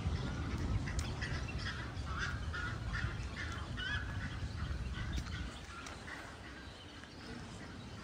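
A group of waterfowl calling, with many short honks and quacks overlapping for about the first five seconds, then thinning out, over a low rumble.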